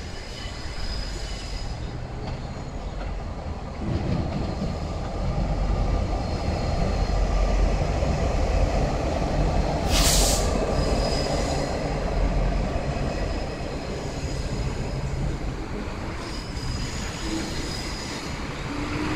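Diesel locomotives heading a coal train pass slowly with a deep engine rumble that grows louder from about four seconds in, then the coal wagons roll by with a thin, high wheel squeal. A short, loud hiss comes about ten seconds in.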